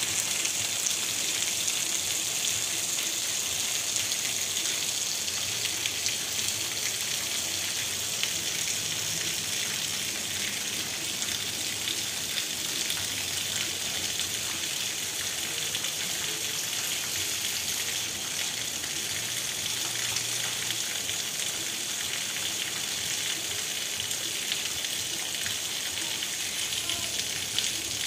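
Steady rain falling on a wet cobblestone street: a continuous dense hiss with fine pattering.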